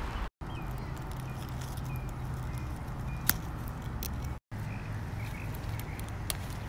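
Outdoor background of a low steady rumble with faint short bird chirps, and a sharp click a little over three seconds in. The sound cuts out completely for a moment twice, at edits.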